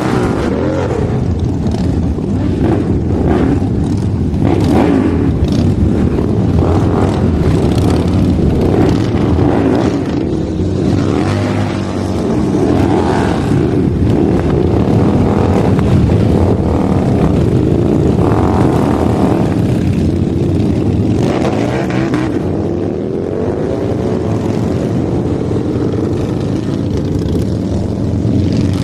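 Motorcycle engine running and being revved, its pitch rising and falling several times.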